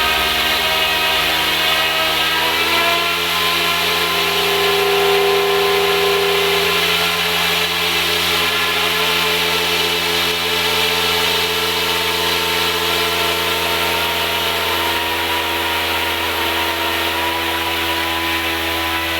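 Yuxiang F09 model UH-60 Black Hawk helicopter running steadily: a high electric motor whine with several tones together and rotor hiss, wavering slightly in pitch a few seconds in.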